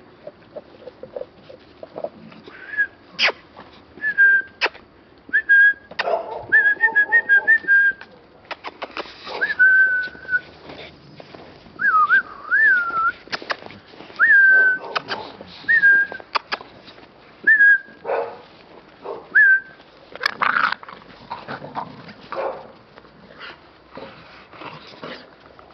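American Staffordshire Terrier puppies whining and yelping in short high-pitched cries, a dozen or so, some wavering in pitch, while the dogs chew and tug at dry branches with sharp cracks and snaps.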